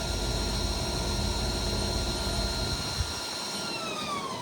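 Haas TL-3 CNC lathe spindle running steadily at about 400 RPM during a spindle test: a steady electric whine over a low hum. The hum drops out about three seconds in, and near the end the whine falls in pitch as the spindle slows.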